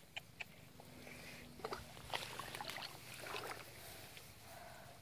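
Faint scattered small splashes and rustles in shallow muddy water among grass, with a few soft clicks.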